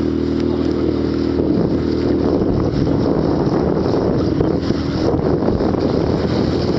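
A boat's engine runs steadily under wind noise on the microphone and rushing water. The engine's hum fades out over the first few seconds, leaving mostly wind and water.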